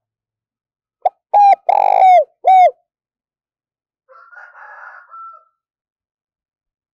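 Spotted dove cooing its song: a brief note, then three loud coos, the third the longest, each dropping in pitch at its end, starting about a second in. A fainter, rougher sound follows a little after four seconds.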